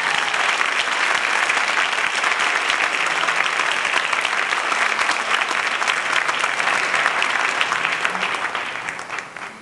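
Audience applauding, a dense patter of many hands clapping, which dies away near the end.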